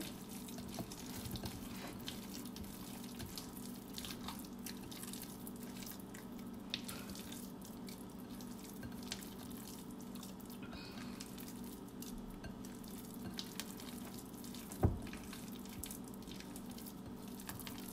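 Hands squishing and kneading a wet ground-chicken and egg meatloaf mixture in a glass bowl, with soft wet squelches and small clicks over a steady low hum. One sharp knock stands out about three seconds before the end.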